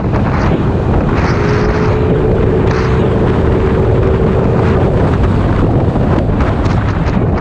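Wind buffeting the microphone over the engine of a Kymco Agility 50 scooter with a freshly fitted 72cc big bore kit being run in, riding along. A steady hum holds for a few seconds in the middle.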